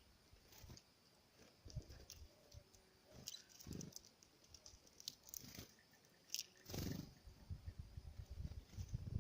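Small birds pecking at a feeder: faint, scattered tapping and clicking, with a few short high chirps and a louder knock near the end.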